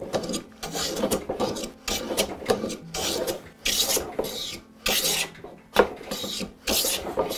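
Hand plane cutting shavings off a walnut blank in a run of quick strokes, a little faster than one a second, each stroke a short rasping hiss of the blade through the wood.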